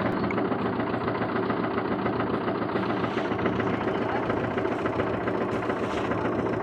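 A machine's engine running steadily at an even speed.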